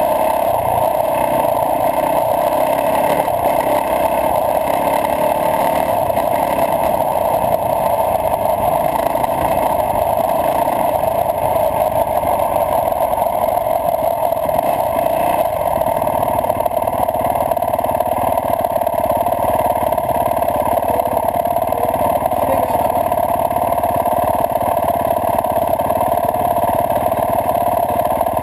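Yamaha YZ450F dirt bike's four-stroke single-cylinder engine running steadily as it is ridden along a dirt track.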